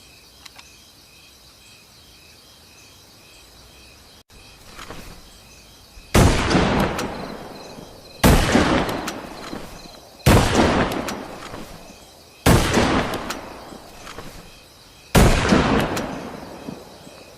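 Winchester Model 70 rifle fired five times, about two seconds apart, each shot followed by a long rolling echo that dies away over a second or two.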